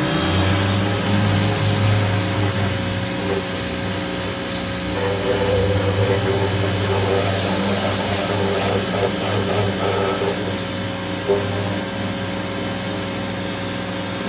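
Pressure washer running, a steady motor hum under the hiss of its water jet spraying the underside of a car to degrease it.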